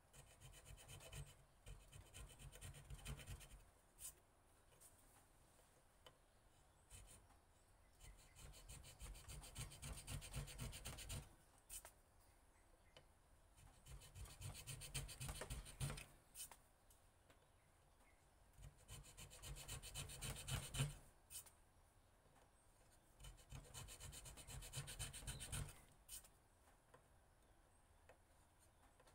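A pointed steel hand tool scraping and cutting anti-slip grip grooves into a wooden knife handle held in a vise: five spells of quick, fine scraping strokes, each two to three seconds long, with short pauses between them.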